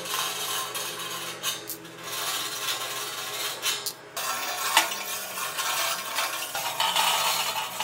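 Metal clinking and scraping as nuts and bolts are fitted and tightened on a welded steel grill box, with a brief pause about four seconds in.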